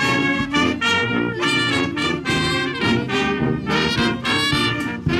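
Brass band playing a tune in a steady rhythm, note after note.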